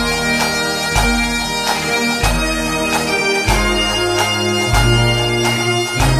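Bagpipe music with a regular drum beat and a bass line that steps to a new note about every second and a quarter.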